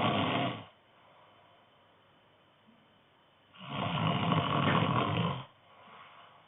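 A man snoring in his sleep, one loud snore with each breath: one snore trails off under a second in, a second runs from about three and a half to five and a half seconds, and a faint breath out follows it.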